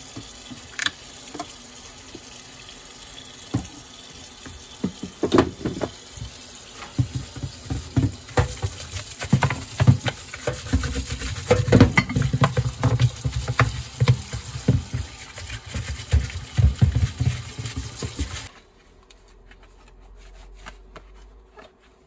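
Tap water running into a stainless steel sink while a plastic dryer filter housing is scrubbed with a brush, with repeated knocks and clatters of plastic. The running water stops suddenly near the end.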